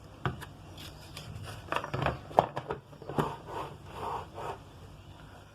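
Hard objects being handled on a bench: a series of knocks, clatters and scrapes, the loudest knock about two and a half seconds in, followed by several shorter scrapes.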